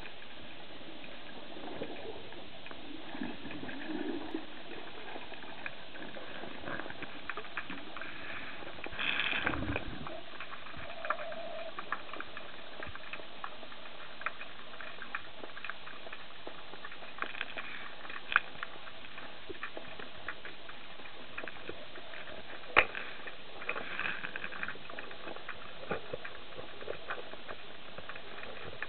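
Underwater ambience picked up by a camera in its housing: a steady hiss with scattered small clicks and crackles, a louder rush of noise about nine seconds in, and sharp clicks near 18 and 23 seconds.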